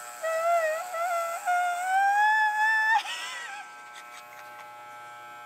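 Corded electric hair clippers buzzing steadily through a head shave. Over the buzz, a high drawn-out vocal wail starts just after the start, slowly rises in pitch for about three seconds, then wavers down and breaks off.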